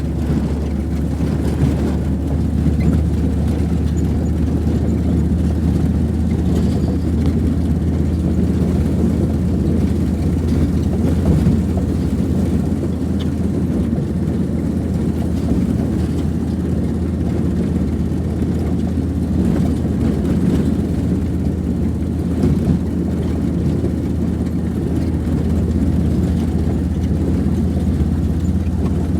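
A road vehicle running steadily, a constant low rumble that neither rises nor falls.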